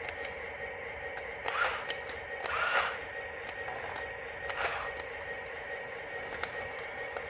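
Small electric gear motors of a remote-controlled toy truck whirring steadily, with three short louder surges of motor whine, the second one the longest.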